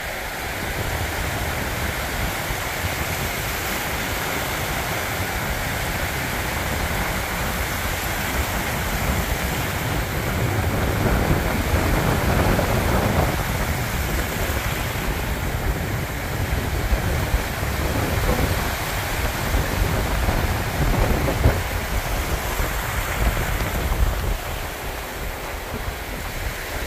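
Strong wind buffeting the camera microphone in gusts, over the steady rush of ocean surf breaking on the beach.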